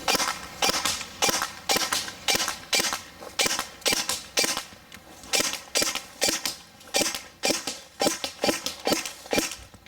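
EMG Seekins Precision SP223 airsoft electric rifle (AEG) firing a steady string of single shots, about two a second, each a sharp snappy crack.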